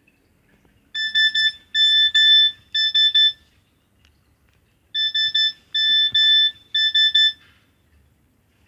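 Nokia 6300 mobile phone's loudspeaker playing a ringtone: a high electronic beeping tune in three quick groups of rapid pulses, played twice with a short pause between.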